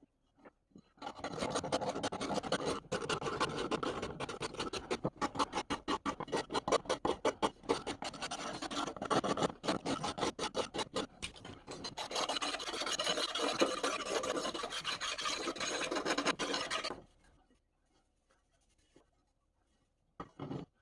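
Hand filing: rapid back-and-forth strokes of a file over a workpiece. They start about a second in, sound as separate strokes through the middle and run together into steadier scraping later, stopping a few seconds before the end.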